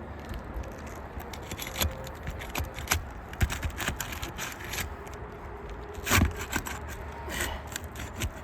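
Steel flat bar scraping and prying under asphalt roof shingles, with scattered crackles and sharp clicks as the sealant bond lets go and the brittle shingles tear. The loudest crack comes a little after six seconds in.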